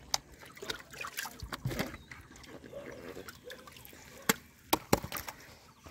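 Hands working in shallow muddy water: small trickles and splashes, with scattered sharp clicks and knocks and two louder knocks a little past the middle.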